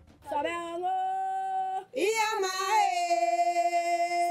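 A woman's voice singing two long held notes, each scooping up into the pitch, with a short break just before two seconds in.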